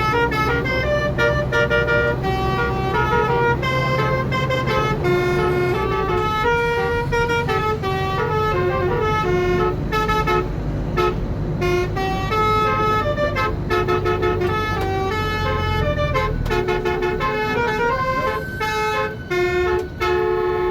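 A Basuri musical air horn with roof-mounted trumpets playing a telolet tune, heard from inside the bus: a quick run of short horn notes stepping up and down in pitch. The bus engine runs underneath as a low rumble that eases off near the end.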